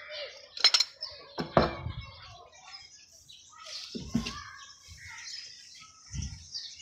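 A pipe wrench gripping and slipping on a plastic pipe fitting at a water tank: a few sharp clicks, then a heavy knock about a second and a half in, followed by dull thumps. Birds chirp throughout.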